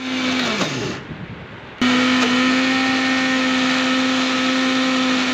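Electric mixer grinder (Magic brand) running: its motor winds down in pitch soon after the start, then is switched back on just under two seconds in and runs steadily at full speed.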